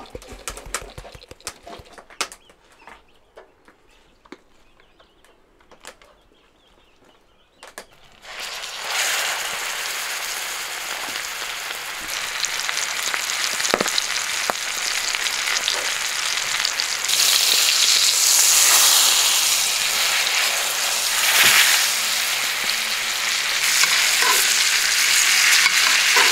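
A few faint clicks and taps, then about eight seconds in a tied beef roast goes into foaming butter in a hot frying pan and starts sizzling. The sizzling gets louder about halfway through and continues as hot butter is spooned over the meat.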